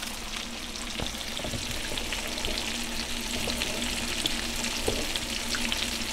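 Flour-dredged turkey tenders pan-frying in butter in a skillet: a steady crackling sizzle, with a few light ticks as a spoon stirs a saucepan of simmering water, over a steady low hum.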